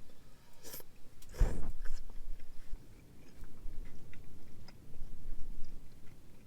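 A person biting and chewing food close to the microphone, with a louder knock about a second and a half in and small clicks around it.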